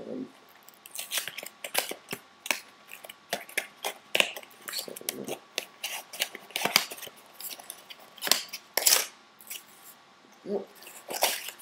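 The cardboard retail box of a Nike+ Sport Armband being opened and handled by hand: a string of irregular clicks, scrapes and rustles from the packaging.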